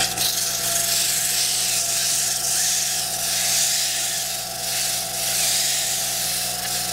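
400-grit sandpaper hissing steadily against a wooden pool cue shaft and its ferrule as they spin in a small lathe, over the lathe motor's steady low hum.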